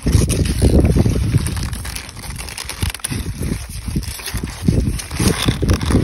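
Wind buffeting the microphone in uneven gusts, a low rumble that is loudest in the first two seconds and keeps surging.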